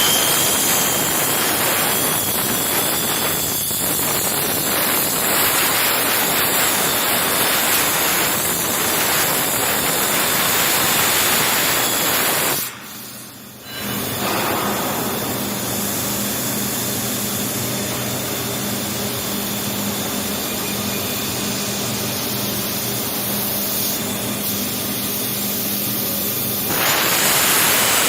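CNC plasma cutting torch running: a loud, steady hiss. The hiss drops out briefly about halfway through, then returns with a low steady hum beneath it.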